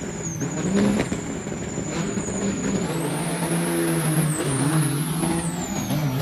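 Semi-truck diesel engines revving hard and launching side by side in a drag race. A high whistle rises about three seconds in and falls away near the end.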